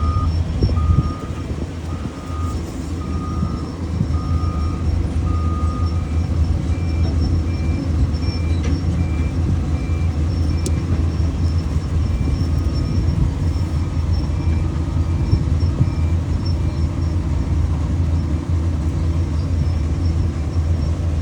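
A heavy machine's engine runs with a steady low drone while a reversing alarm beeps at an even pace; the beep jumps to a higher pitch about six seconds in and stops past the middle.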